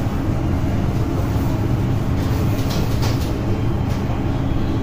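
Steady low rumble with a faint hum, even and unbroken.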